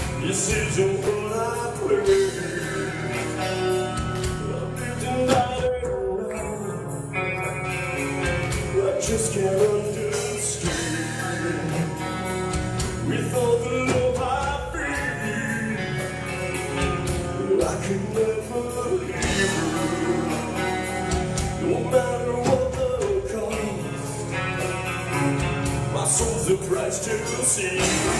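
Heavy metal band playing live: a male lead vocal sung over distorted electric guitars, bass guitar and drums, heard from among the audience.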